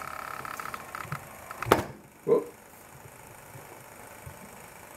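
Electric milk frother's magnetic whisk spinning with a steady whirring whine, which stops about 1.7 s in with a sharp click, followed by a short knock half a second later.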